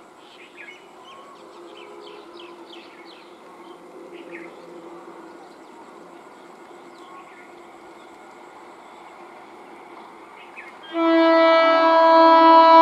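EMU local train approaching with a low steady hum under faint chirping, then sounding its horn loudly about eleven seconds in, one long blast still going at the end.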